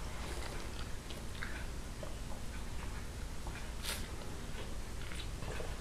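Quiet eating sounds: a few faint clicks and mouth noises of people chewing caribou ribs, over a low steady hum.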